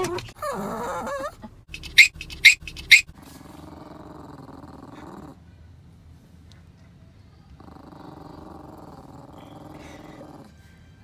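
A small Yorkshire terrier yaps sharply three times in quick succession. She then growls low and steady in two spells of two to three seconds each, over a chew bone in her bed. A brief wavering vocal sound comes at the start.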